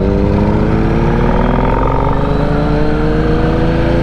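Yamaha Stratoliner's V-twin engine running under way, its pitch climbing slowly and steadily as the motorcycle gains speed.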